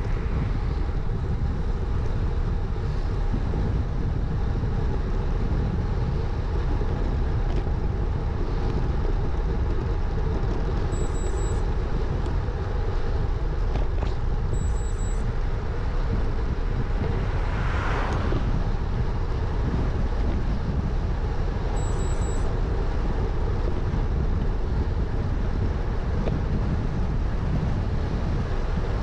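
Steady wind rush on a handlebar-mounted action camera's microphone, with road noise from a road bike's tyres rolling on wet tarmac. About 18 seconds in, a car passes, swelling and fading.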